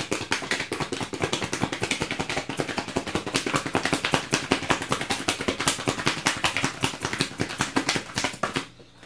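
A deck of tarot cards being shuffled by hand: a rapid, continuous run of card slaps and flicks that stops abruptly near the end.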